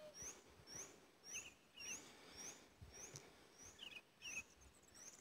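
Faint birdsong: one bird repeats a short rising chirp about twice a second, with a few quick twittering notes mixed in.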